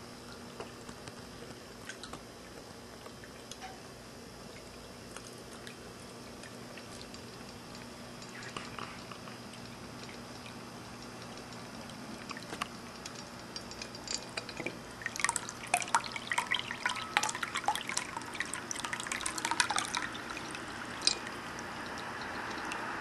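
Ceramic cat drinking fountain running, water dripping and trickling into its basin over a faint steady hum. The drips come sparsely at first, then thicker and louder in the second half.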